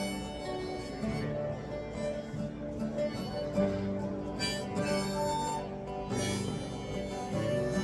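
Harmonica playing held, sustained notes over strummed acoustic guitar, an instrumental passage of a folk song with no singing.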